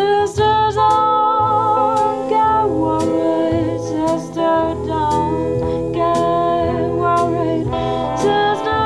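Jazz-style song music with no words: a wavering melody line over a pulsing bass, played back through a hi-fi system with KEF iQ5 bookshelf speakers.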